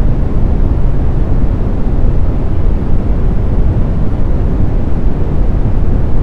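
Synthesised brown noise: a steady, deep rushing hiss, heaviest in the bass and dull in the treble, with no tones and no changes.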